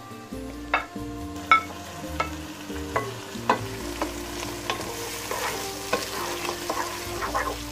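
Sliced sausage sizzling as it fries in a pot of onions and lecsó, with a wooden spoon scraping the pot and knocking against it in a string of sharp knocks while stirring.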